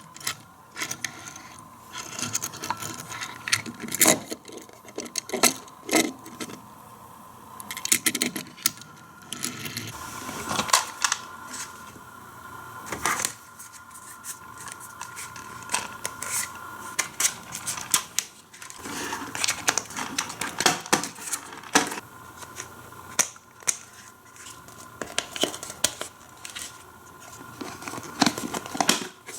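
Plastic toy playset pieces and packaging being handled: irregular clicks, knocks and scrapes as the parts are taken out and fitted together.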